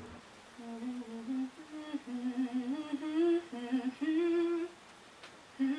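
A woman humming a wordless tune in short phrases of held notes that step up and down, breaking off briefly near the end.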